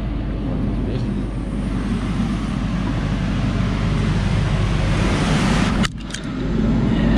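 Engine-room ventilation blowers running with a steady whir over a low hum. There is a brief dropout just before six seconds, after which the blower noise comes back louder.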